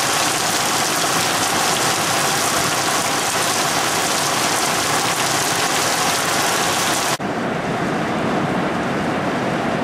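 Heavy wind-driven rain from a storm cell pouring down in a loud, steady hiss. About seven seconds in, the sound cuts suddenly to a duller rush of wind and rain with less hiss.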